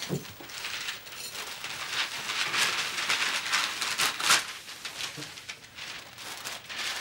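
Wrapping paper crackling and rustling as a present is torn open, densest for a few seconds in the middle, then dying down.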